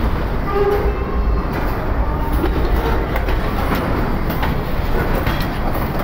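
Container wagons of a long freight train rolling past, a steady rumble of wheels on rails with irregular clicks and clatter from the rail joints.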